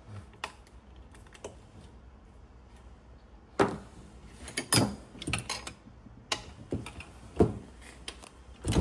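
Light clicks of a hex key and small metal parts being worked on an aluminium machine housing, then from about three and a half seconds in, louder irregular knocks and clatter as the housing and parts are handled on a workbench, with one loud knock near the end.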